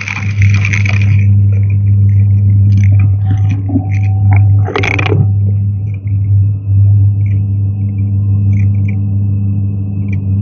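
Hoover vacuum cleaner running with a steady low hum and a thin high whine. The rushing air hiss cuts out about a second in, with scattered scrapes and a brief burst of hiss about five seconds in.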